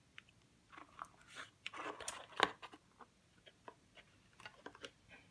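A handmade miniature paper book and its card covers being folded shut and handled: paper rustling and crinkling with small taps and clicks, busiest in the middle of the stretch and thinning out toward the end.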